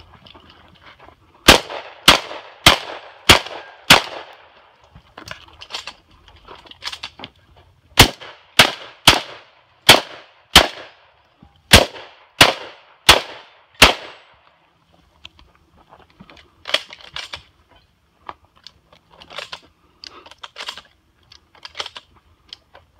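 Shotgun fired close by in rapid strings: five shots, a pause, five more, then four, each string at roughly two shots a second. After that only fainter scattered clicks and pops.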